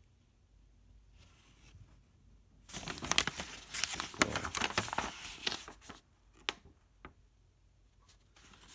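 A folded paper instruction leaflet being opened out by hand, with crackling, rustling paper for about three seconds starting a few seconds in, then two short ticks.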